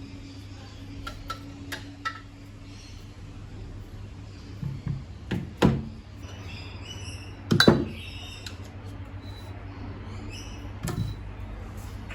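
Metal knocks and clinks of motorcycle fork parts and tools being handled on a workbench, the loudest a little over halfway through, over a steady low hum.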